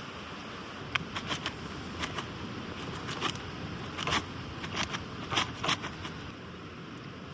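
A snack of corn chips being handled and eaten: a dozen or so short, sharp crinkles and crunches come irregularly between about one and six seconds in, over a steady hiss.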